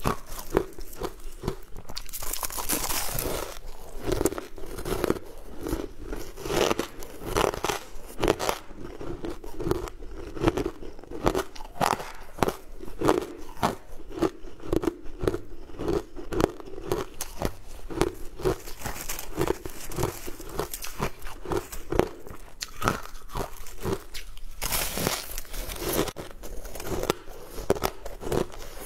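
Crushed ice being bitten and chewed close to the microphone, a rapid run of crunches throughout, with the plastic bag holding the ice crinkling as a gloved hand digs into it around three seconds in and again near the end.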